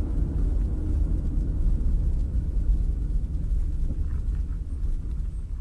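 Steady low rumble of a car's engine and tyres on the road, heard from inside the cabin through a dashcam microphone.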